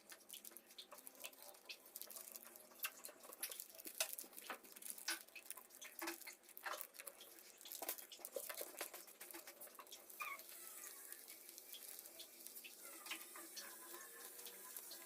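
Faint, irregular crinkling and tapping of paper being handled and folded: many small clicks, busiest in the first half and thinning out later.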